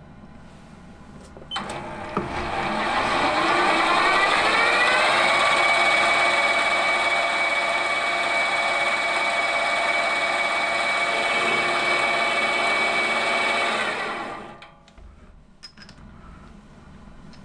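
Small metal-turning lathe switched on with a click, its motor and drive whining up in pitch over about three seconds and then running steadily at speed. About fourteen seconds in it is switched off and winds down, followed by a few faint clicks.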